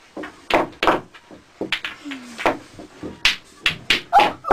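A series of sharp clicks and knocks at uneven intervals, with a short low sliding tone just after the middle.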